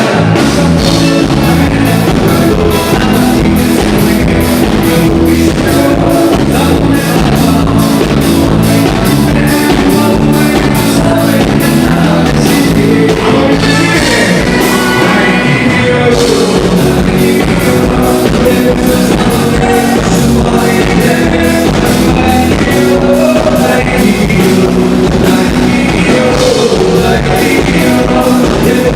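Live band music with singing over a fast, steady drum beat, in the southern Brazilian arrasta-pé dance style.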